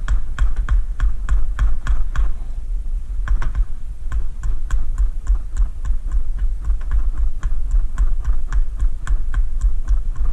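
Hammer tapping rapidly on a trimmed rubber tire plug and the tread around it, about four blows a second, flattening and seating the plug in the tire. The taps pause briefly about two seconds in, then carry on over a steady low rumble.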